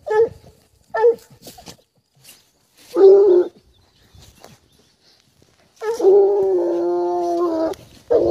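Scent hounds baying on a trail: two short yelping calls, a half-second bay about three seconds in, then one long drawn-out bay held for about two seconds near the end.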